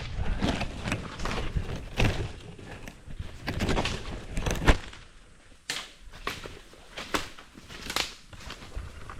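Footsteps on a trail: irregular crunching and scuffing steps, brisker at first and sparser later.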